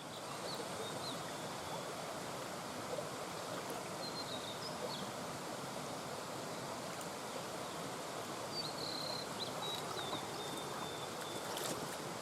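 Small brook babbling steadily over stones, an even rushing murmur of water, with a few short high chirps now and then.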